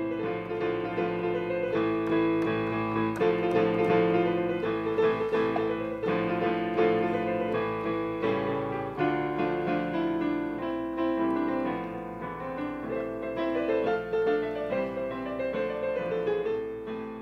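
Background piano music: a melody of notes over held chords.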